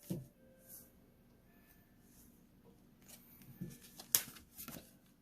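Trading cards and a pack wrapper being handled: faint rustling with a few sharp crinkles and clicks from about three seconds in, the loudest about four seconds in.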